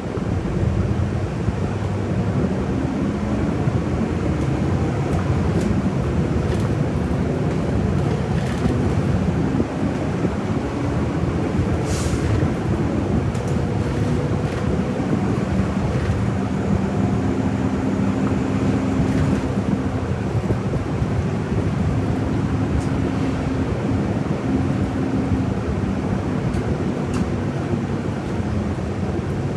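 Inside a city bus under way: the engine running with road and cabin noise, its steady hum settling into a clearer held tone about halfway through. A single sharp click about twelve seconds in.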